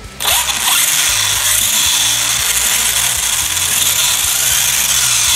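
Brushless motor in an RC buggy spinning the drivetrain and wheels up off the ground: it starts suddenly about a quarter second in with a short rising whine, then holds a loud, steady, high-pitched whir of motor, gears and spinning wheels.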